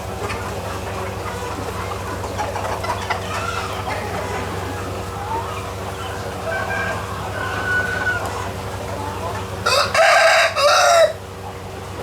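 Chickens clucking and calling over a steady low hum, then a rooster crows once loudly near the end, in two parts lasting about a second and a half.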